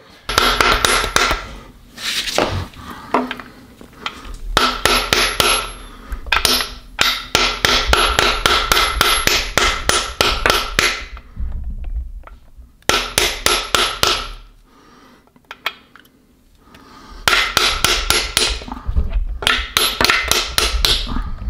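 A hammer striking a socket held against the intermediate shaft bearing cap of a VR6 engine block, tapping the press-fit cap into its bore. The blows come in quick runs of several a second, each with a metallic ring, separated by short pauses.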